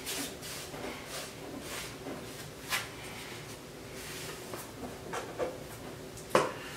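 Paint brush swishing in quick, repeated strokes along baseboard trim. Then the brush is dipped into a paint can, with a few sharp knocks against the can, the loudest near the end.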